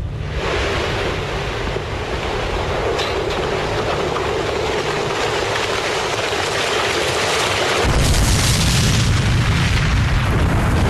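Sustained roar of a large explosion, a dense rushing noise with a deep rumble joining about eight seconds in and growing slightly louder.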